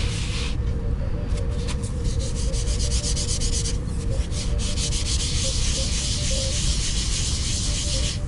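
Fine-grit sanding pad rubbed quickly back and forth over the painted body of a tricorder prop, smoothing the paint towards a polish: a rasping hiss in rapid strokes, with short pauses about half a second in and near the middle. A steady low rumble sits underneath.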